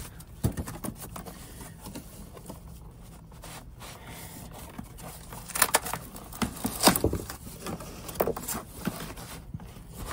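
Foam packing blocks being pulled out of a cardboard box, foam scraping against foam and cardboard, with a few sharp clicks and knocks, the loudest about six to seven seconds in.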